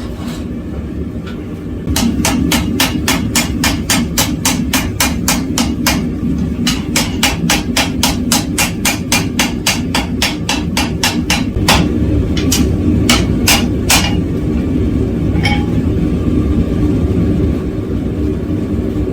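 Hand hammer striking hot steel on an anvil to set a forge weld, a quick run of blows at about four a second that thins to a few single strikes near the end, over a steady low rumble.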